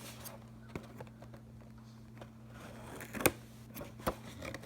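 A cardboard toy box being handled as someone tries to open it: a few scattered clicks and taps, with one louder knock about three seconds in, over a steady low hum.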